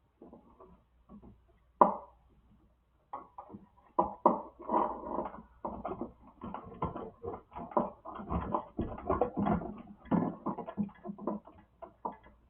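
Irregular clicks, taps and light rattles of electrical wires and small plastic parts being handled in a wall switch box. There is a sharp snap about two seconds in, and the handling grows busier from about four seconds in.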